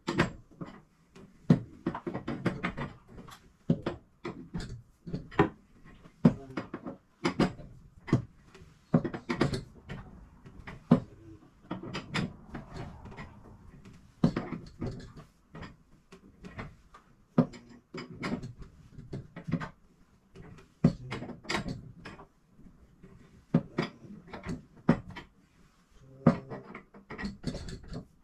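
Irregular sharp metal clanks and knocks, one or two a second, from steel winding bars working the winding cone of a garage door torsion spring.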